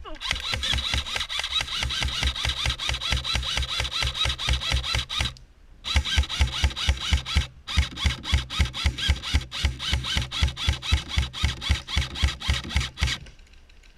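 Running footsteps, each stride a thump with gear rattling in time, close to the microphone. A short break about five seconds in, then the running goes on until it stops near the end.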